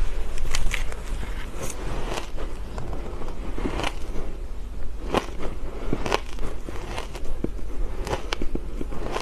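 A person chewing mouthfuls of soft, crumbly coloured ice close to the microphone: irregular crisp crunches and crackles, a few each second.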